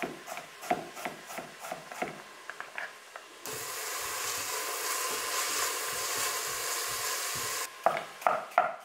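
Chef's knife dicing an apple on a cutting board, light taps about three a second. About three and a half seconds in, this cuts abruptly to onions sizzling as they sweat in lard in a steel pot, a steady hiss for about four seconds. The hiss stops suddenly and louder knife chops return at the same pace.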